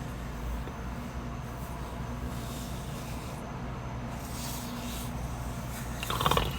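Steady low rumble and hiss with a faint hum, with a short vocal sound near the end.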